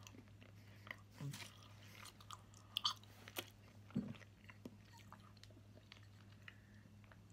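A person chewing a bite of milk chocolate caramel sea salt bar: faint, irregular chewing clicks, with a few louder crunching bites about one, three and four seconds in.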